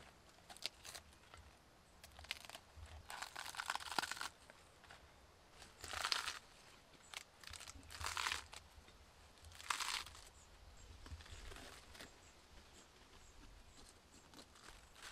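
Crisp romaine lettuce leaves being torn apart by hand: a series of separate crunchy rips, each a second or two apart, with a longer tearing stretch about three to four seconds in.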